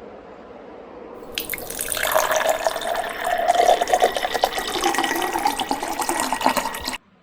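Running water splashing, as from a tap, starting about a second and a half in and cutting off abruptly near the end.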